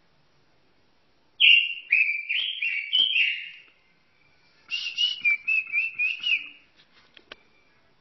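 Robin singing two phrases of clear whistled notes, the first slower with a few stepped notes, the second a quicker warble, then a few short clicks near the end.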